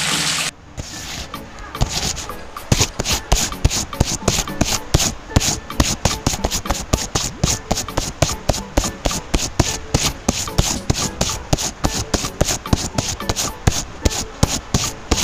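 Tiny hand trowel scraping and smoothing wet cement in quick repeated strokes, about three or four a second. In the first half-second the last of the wet cement pours from a small bucket.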